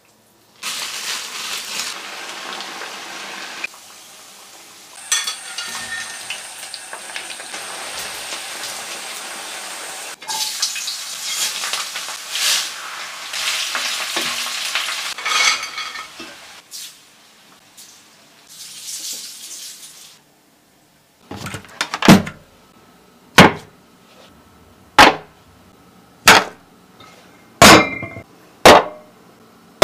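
Food sizzling in hot oil in a frying pan as it is stirred. After a short pause come a series of sharp, loud knocks, roughly one every second and a half.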